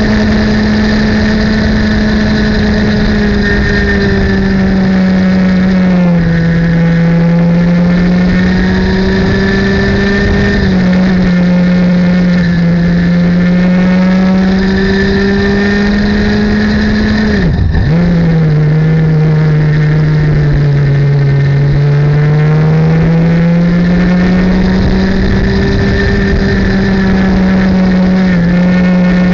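Racing kart's single-cylinder two-stroke engine heard onboard at high revs, its note stepping down and climbing back several times through the corners, with one brief sharp dip about two-thirds of the way through.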